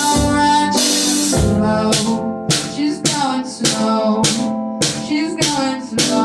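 Rock band playing a song: guitar and drum kit, with a steady drum beat setting in about two seconds in.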